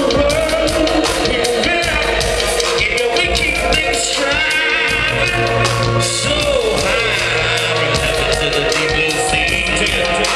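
Live band music played loud in a concert hall, with a steady bass and a singing or melodic line over it.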